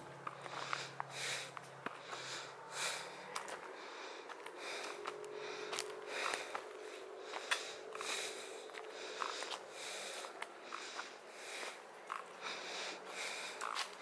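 Footsteps on dry fallen leaves and a dirt path, a walker's steady pace of about two steps a second.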